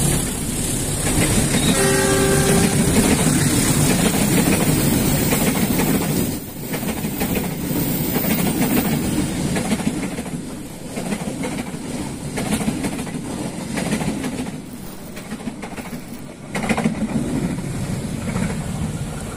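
Passenger train of coaches hauled by a CC206 diesel locomotive passing close by, its wheels clattering over the rail joints under a heavy rumble. A short horn blast comes about two seconds in. The noise eases as the end of the train goes by and runs away.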